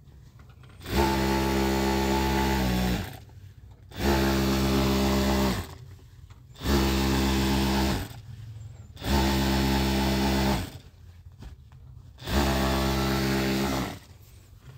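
Sewing machine stitching quilting lines through a padded comforter in five separate runs of about two seconds each, with short pauses between them. Each run is a steady, even-pitched hum that winds down quickly when it stops.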